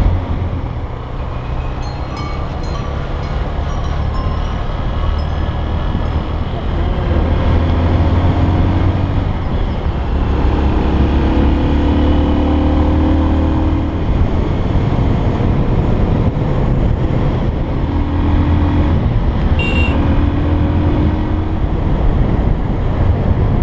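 Honda XR125 single-cylinder four-stroke motorbike engine running under way, with wind rush over the microphone. The engine pitch rises and falls as the throttle changes.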